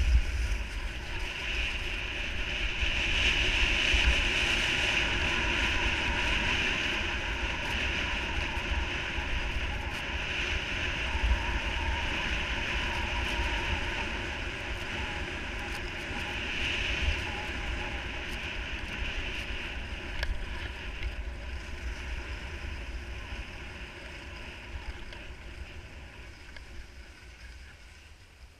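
Skis running fast over groomed snow: a steady rushing hiss of skis sliding and edging on the packed surface, mixed with wind buffeting the microphone. It fades gradually over the last several seconds as the skier slows down.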